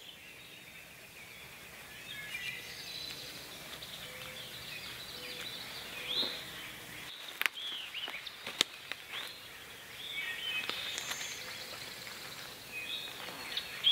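Several woodland birds chirping and whistling, with a few sharp snaps about halfway through.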